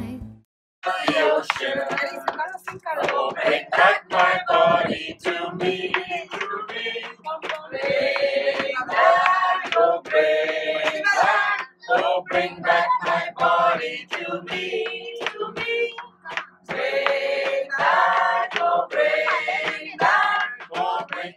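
A person's voice in phrases broken by short pauses, with a faint steady low hum underneath.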